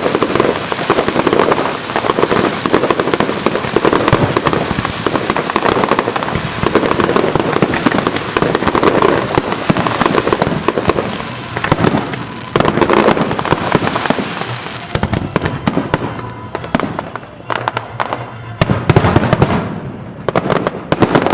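Dense barrage of aerial fireworks going off in quick succession, booms mixed with crackling, thinning out somewhat after about fifteen seconds before a few more loud bursts near the end.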